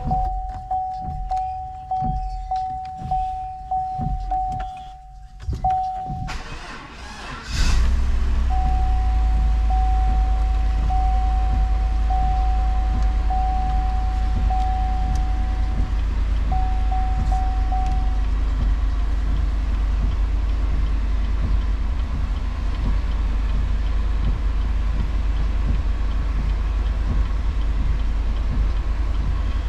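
Dashboard warning chime sounding over and over, then the 2015 GMC Yukon XL's 5.3-litre V8 cranks and fires about seven seconds in and settles into a steady idle. The chime carries on over the idle for about ten seconds, then stops.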